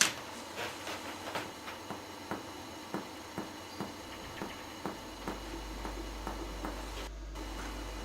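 Finger-on-finger percussion of the chest over the back: a run of soft taps, about two to three a second. The pleximeter finger is stepped upward from the spine of the scapula to find the height of the lung apex.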